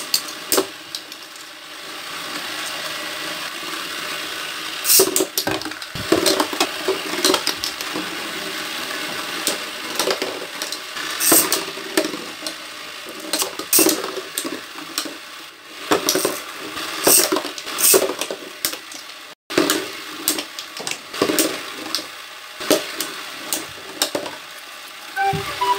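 Two Beyblade spinning tops whirring in a plastic stadium, with repeated sharp plastic clacks as they collide.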